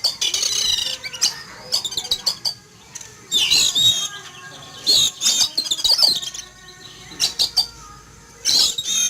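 Oriental magpie-robin (kacer) singing in repeated short bursts of rapid, high chirps and whistles with brief pauses between, the loud agitated song it gives on seeing a hawk fly over.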